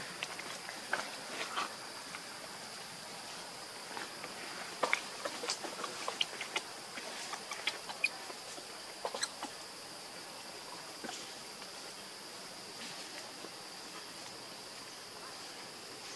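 A steady high insect drone runs throughout. Scattered short clicks and rustles of dry leaf litter come mostly in the first ten seconds or so.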